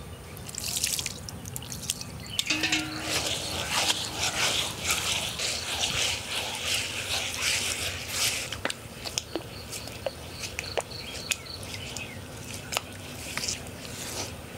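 Soaked raw rice being ground with water in a hand-turned granite stone grinder: the heavy stone pestle grates and squelches over the wet grains in the stone basin, with small clicks as grains are pushed back under it. The grinding is loudest from about two to eight seconds in, then softer.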